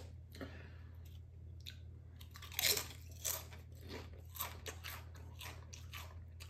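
A Doritos tortilla chip bitten about three seconds in with a sharp crunch, then chewed with a run of smaller crunches, mouth closed. Just before the bite, a brief rustle from a hand in the chip bag.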